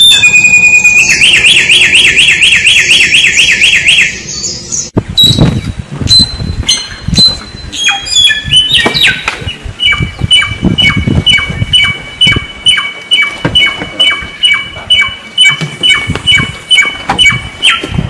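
A wild samyong songbird singing. It opens with a loud, fast, repeated trill, breaks off at about four seconds, then gives a few varied whistled notes, then settles into a steady string of two-note whistles at about two a second. Low rumbling background noise runs under the second half.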